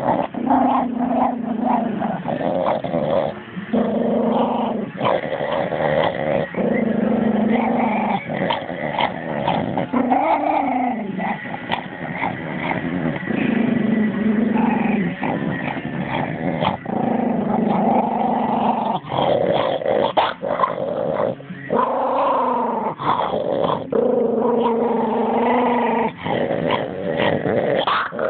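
A Cavalier King Charles spaniel growling over a lamb bone it is chewing: long, low growls a few seconds each with short breaks, guarding the bone. Sharp clicks of teeth on the bone come between and through the growls.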